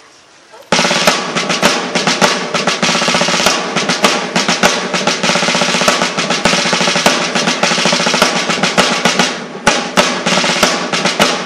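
Pipe band snare drums playing rapid rolls and beats, starting suddenly a little under a second in, with a brief dip near the end before going on.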